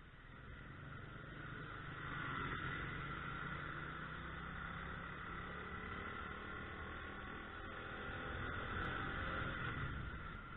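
Yuki Gusto 50cc scooter running under way, engine and wind noise steady. It grows louder about two seconds in as the scooter picks up speed.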